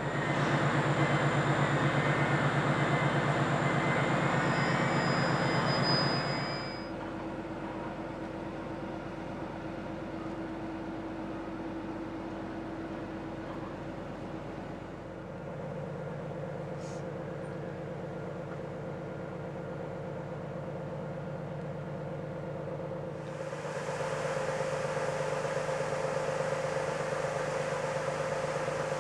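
Steady drone of the ferry MV Armorique's shipboard machinery and ventilation on the open deck, a low hum with several steady tones. A louder rush of air noise covers the first six seconds, stops suddenly, and comes back about three-quarters of the way through.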